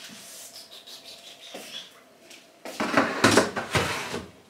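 Kitchen handling noises: dishes and containers clattering, faint at first, then a loud flurry of knocks and rustles lasting about a second and a half past the middle.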